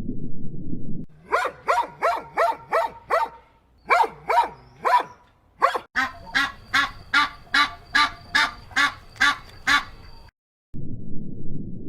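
A bird, likely waterfowl, gives a long series of short honking calls in three runs, quickening to about three calls a second in the last run. A low rumbling noise comes before the calls and returns near the end.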